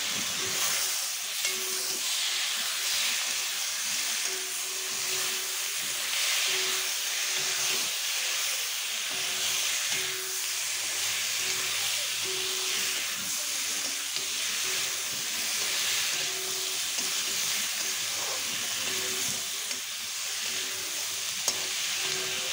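Sliced onions, ginger-garlic paste and potato pieces sizzling steadily in hot oil in an iron wok, stirred with a spatula.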